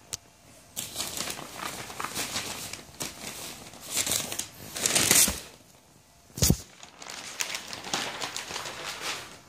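Rustling and crinkling handling noise in uneven stretches while an HDMI cable is fitted to a laptop, with a sharp knock about six and a half seconds in.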